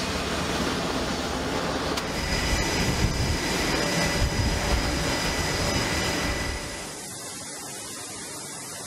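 Steady aircraft carrier flight-deck noise: wind and running jet engines, with a low rumble. About seven seconds in it drops to a quieter, steady hiss.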